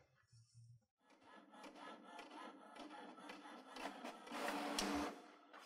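HP DeskJet 3639 inkjet printer starting up and feeding and printing a page. The faint mechanical running starts about a second in, grows louder, and has a steady hum near the end.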